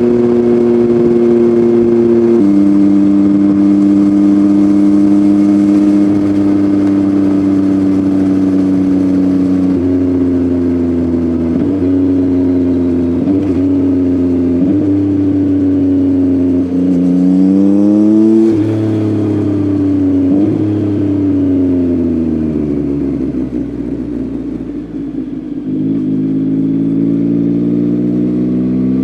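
Yamaha MT-09's three-cylinder engine breathing through an Akrapovic full exhaust system while riding. It holds a steady note, drops in pitch at several gear changes, falls away as the bike slows, then rises again near the end under acceleration.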